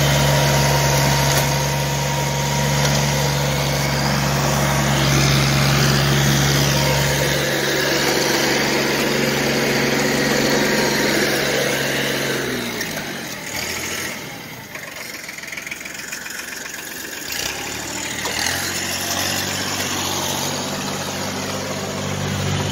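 Compact tractor engine running steadily while its rear rotary tiller and roller churn the soil. The engine note drops and quiets about halfway through, then builds again a few seconds before the end.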